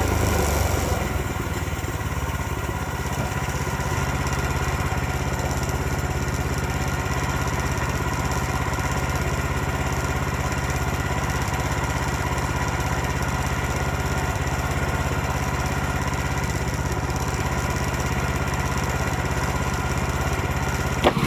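Woodland Mills portable bandsaw mill's gas engine running steadily, its note settling lower about a second in and then holding, as the blade works through a hard white oak log.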